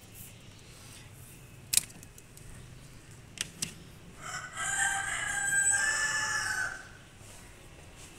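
A rooster crows once, a long call of about two and a half seconds starting about four seconds in. A few sharp clicks come before it.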